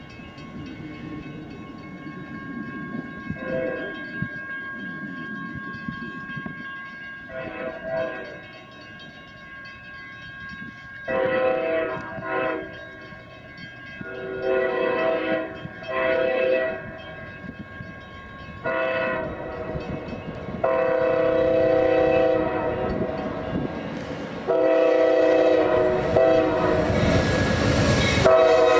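Amtrak GE Genesis diesel locomotive sounding its air horn in a series of long and short blasts for grade crossings as it approaches, the blasts growing louder and longer. Near the end the locomotive passes close, and its engine and wheels rise into a loud rush under the horn.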